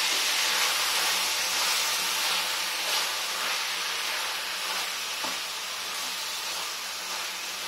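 Chopped chicken and onions sizzling in oil in a nonstick pan as they are stirred with a plastic spatula: a steady frying hiss that eases off slightly, with a couple of faint spatula scrapes.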